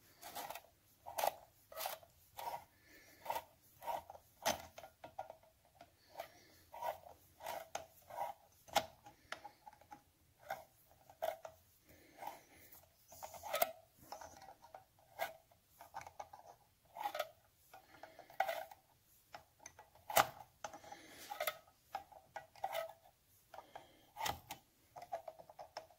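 Triumph clutch spring nut being turned down its stud with a T-handle slotted nut tool: light metal clicks and short scrapes, irregular, about one or two a second, as the nut is worked round in small turns.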